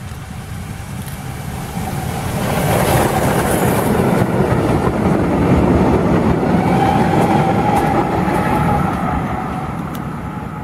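Ol49 steam locomotive and its train of coaches passing close by. The sound swells as it comes up, is loudest as the coaches go past, and fades as the train draws away.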